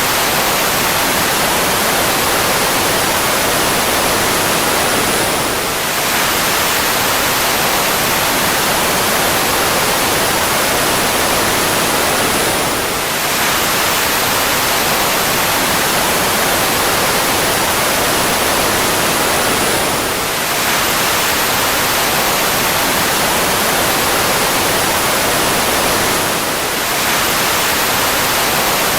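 Steady jet engine roar with a faint high whine that drifts slightly down, looped about every seven seconds with a brief dip at each repeat.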